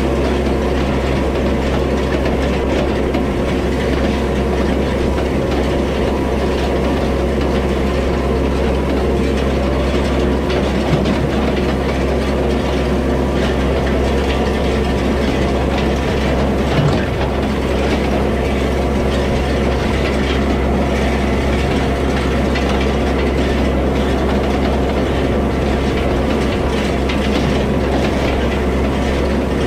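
Antique side-delivery hay rake, freshly greased, clattering steadily as its ground-driven reel gears and tines turn, over the steady running of the Yanmar diesel tractor pulling it. Two brief louder knocks come about a third of the way in and just past halfway.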